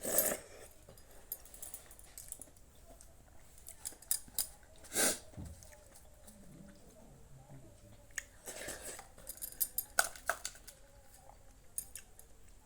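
A person eating a meal: chewing with occasional crunches, and scattered small clicks and brief rustling sounds.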